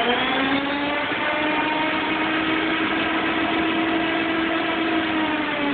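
Murray lawn tractor's 36-volt electric drive motor and transaxle running at full speed in top gear: a steady whine of several tones, most of the noise from the transaxle gears rather than the motor. The pitch dips slightly near the end.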